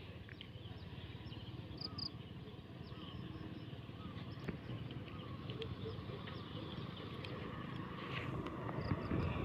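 Outdoor ambience: a steady low rumble with faint scattered clicks and a few short high chirps.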